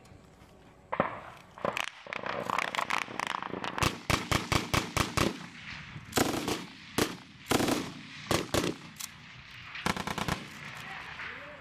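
Small-arms gunfire in a firefight: quick bursts of automatic fire mixed with single rifle shots, starting about a second in and going on throughout.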